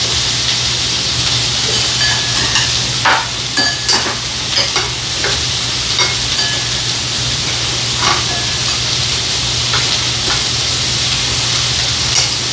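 Food sizzling in a frying pan with a steady hiss, over a low steady hum, with scattered clicks of chopsticks and tongs against the pan and bowls.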